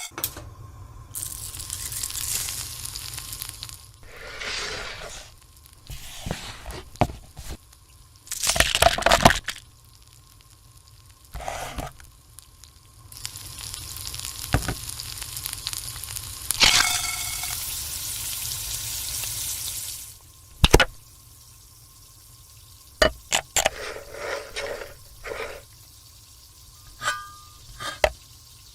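Cooking sound effects: food sizzling in a pan for a few seconds near the start and again for about seven seconds past the middle, with scattered knocks, taps and clinks in between.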